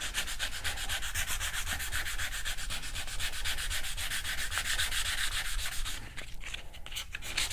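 Sandpaper rubbed by hand over a dried wood filler patch on a wooden board, in quick, even back-and-forth strokes that stop about six seconds in. The filler has dried hard enough to sand flush.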